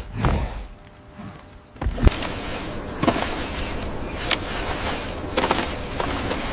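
A heavy thud of wood about two seconds in, then the clatter of wooden sticks being handled, with a few sharp knocks as poles are set into a stick fence.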